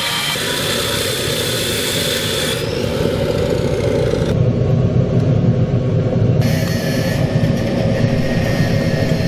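Steady loud roar of a metal-melting furnace's burner, with a higher hiss on top that changes abruptly a few times.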